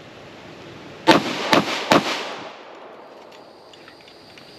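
A 9mm Glock pistol fired three times in quick succession, a little under half a second apart, each shot trailing a short echo. These are the last three shots of a four-round timed draw-and-fire string.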